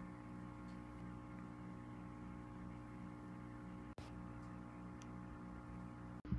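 Faint steady electrical hum with a soft low pulsing about three times a second, briefly cut out twice.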